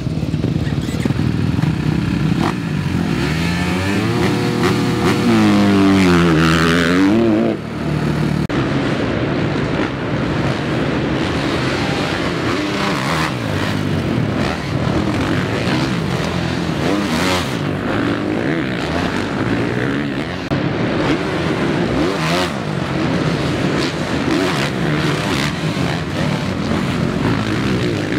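Dirt bike engines revving on a supercross track. One bike revs hard up and down from about three to seven seconds in, and after that bikes keep running and revving with a rising and falling engine note.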